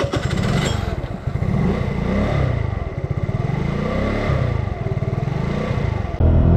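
IceBear Maddog Gen 1 50cc scooter's small four-stroke single engine, just started, running and revved up and down several times on its stock exhaust. Music cuts in abruptly near the end.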